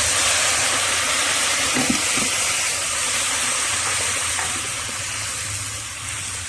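Masala tipped into hot tempering oil in a kadai, sizzling and hissing loudly at once and fading slowly as it cooks.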